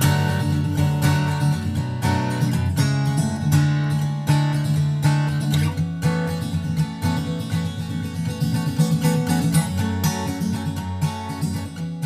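Background music: strummed acoustic guitar with a steady rhythm, fading out near the end.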